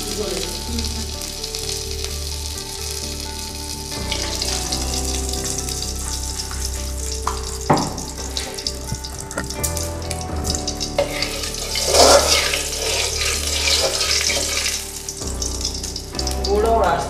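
Food sizzling in hot oil in a steel pan on a gas stove, a steady frying hiss with a sharp utensil knock about eight seconds in and louder sizzling swells later, over soft background music.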